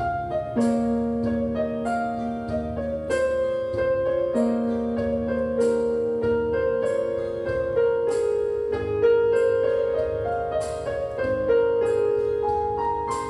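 Background piano music: single notes and chords struck about once a second and left to ring.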